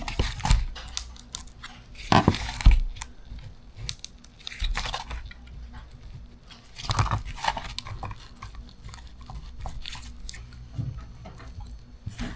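Outboard power-trim motor being worked apart by hand: irregular clicks, knocks and scraping of its metal housing and parts, in a few separate bursts.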